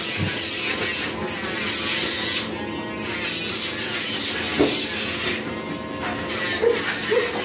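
Electric pet nail grinder running on a dog's nails, a steady small-motor buzz with a grinding hiss. The hiss drops away briefly twice, around two and a half and five and a half seconds in, and a few short squeaks come near the end.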